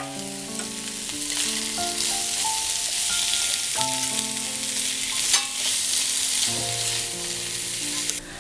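Beef liver and onions sizzling in hot coconut oil in a non-stick kadai as they are stirred with a spatula, with one sharp scrape of the spatula a little past halfway. Soft background music with held notes plays underneath.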